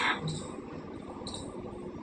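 African grey parrot giving a few short, high chirps.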